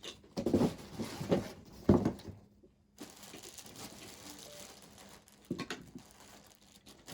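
Handling noises: rustling and several light knocks as toy track pieces and packaging are moved about, clustered in the first two seconds with a few more knocks near the end.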